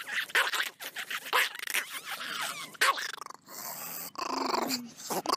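A small long-haired dog vocalising in a quick run of short growling, howling sounds.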